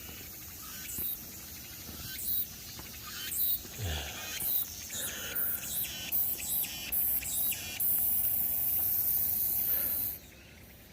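Footsteps crunching on dry leaves and brush along a mountain trail, irregular, about one or two steps a second. Near the end a steady high hiss joins in for a couple of seconds and then cuts off suddenly.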